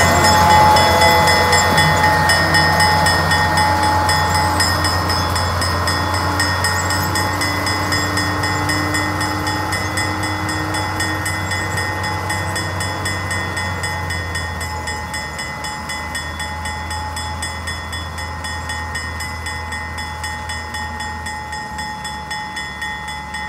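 East Broad Top M-7 diesel locomotive's engine running with a low throb and a steady whine over it, loud at first and fading evenly as the locomotive moves away down the track.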